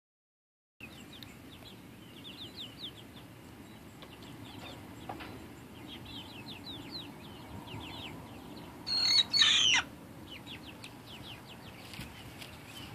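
A five-week-old cockerel crowing once about nine seconds in: an immature crow, a short call of about a second broken in two and falling in pitch at the end. Short high chirps go on throughout.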